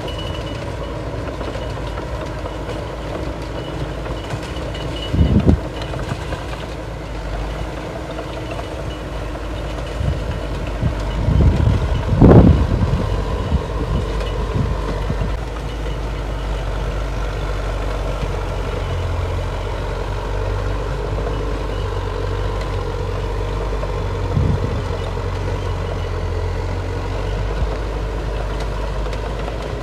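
Diesel earthmoving machinery, a bulldozer and dump trucks, running steadily under load, with a few heavy knocks about five, twelve and twenty-four seconds in; the loudest comes around twelve seconds.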